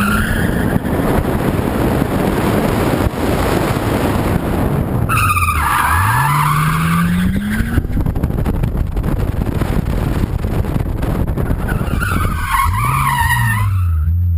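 1997 Nissan Skyline R33 GTS-t's turbocharged straight-six driven hard, its note climbing as the revs rise about five seconds in and dipping then climbing again near the end. Tyres squeal as the car slides, at about five seconds in and again near the end, over a constant rush of noise.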